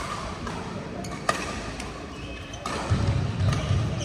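Badminton rally: sharp hits of rackets on the shuttlecock about once a second, with players' feet thudding on the court floor, heavier near the end.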